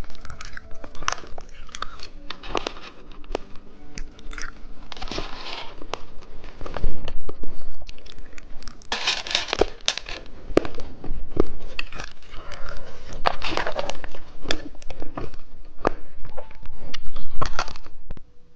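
Close-miked crunching and chewing of candy: a dense run of sharp crunches and crackles, with louder spells of crunching about five, nine and thirteen seconds in.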